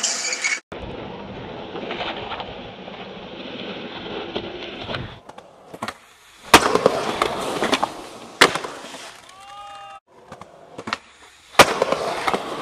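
Skateboard wheels rolling on concrete, with sharp cracks of the board popping and slapping down on landings, the loudest about halfway in and again near the end. The sound cuts abruptly a few times between short clips.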